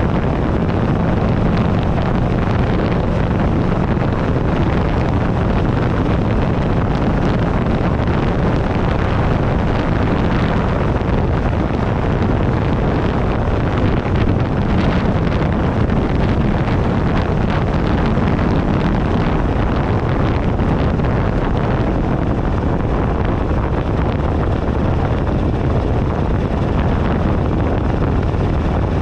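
Heavy wind noise on a handlebar-mounted camera's microphone at road speed, over the steady running of a 2008 Buell Ulysses XB12XT's air-cooled V-twin engine.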